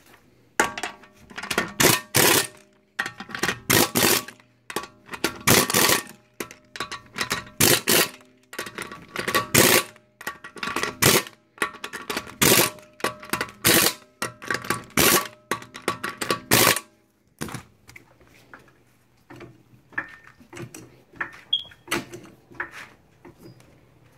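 Impact wrench running in about a dozen short bursts, hammering the wheel's lug bolts tight as the wheel is refitted. The bursts stop after about three quarters of the time, leaving quieter scattered knocks and clanks.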